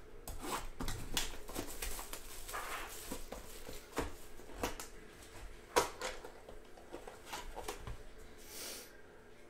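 Cardboard trading-card box being handled and opened: irregular rustling and scraping, with a few sharp taps, the loudest about four and six seconds in. Near the end a hard plastic card holder is slid out and handled.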